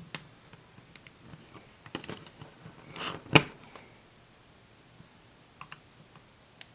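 Small plastic clicks and rustling as parts of a screen-protector installation jig are handled and refitted, with one sharp click about three and a half seconds in; then only a few faint ticks.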